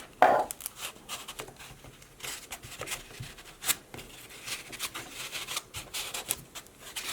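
Thick trading cards being worked out of a foam-lined cardboard box: scattered light scrapes, taps and rustles of card and packaging being handled.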